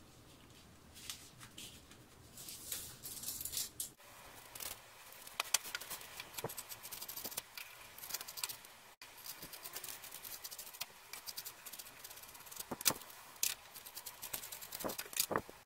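Hand scissors cutting through folded fabric and a paper pattern: an irregular run of crisp snips with paper rustling between them.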